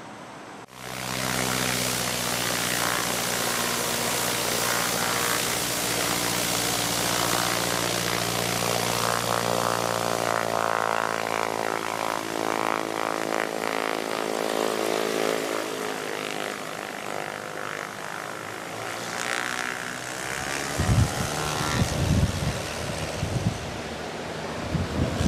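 Single-engine Cessna's piston engine and propeller running at takeoff power during its takeoff roll, a steady drone whose pitch sinks a little as the plane passes and draws away. Low thuds near the end.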